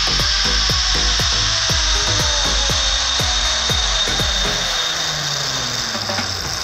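Zipline trolley pulleys running along the steel cable: a loud, steady whirring hiss whose pitch falls slowly as the rider slows near the landing, with low wind rumble on the microphone that fades about five seconds in.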